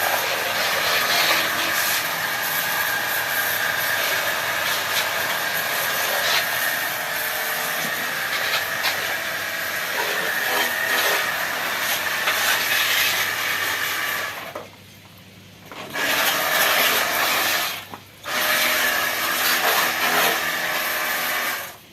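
Ecosen portable jet cleaner (pressure washer) running: a steady pump hum with the hiss of its water jet spraying. It cuts out twice briefly about two-thirds of the way through as the spray is released, then stops near the end.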